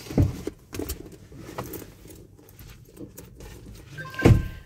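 Handling noise inside a car as a bag is picked up off the seat: rustling and clicks, with two heavy thumps, one just after the start and one near the end. A short beep sounds near the end.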